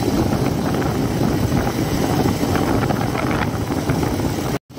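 Bajaj Avenger motorcycle's single-cylinder engine running steadily while riding along a rough road, with wind buffeting the microphone.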